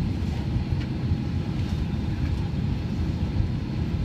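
Steady low rumble of an Airbus A319 airliner taxiing at low power, heard from inside the cabin, with a few faint clicks.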